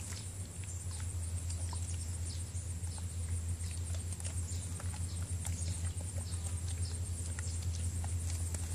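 Faint, scattered scratching and tapping of hand work on the step's old adhesive residue being treated with Goo Gone, over a steady low hum.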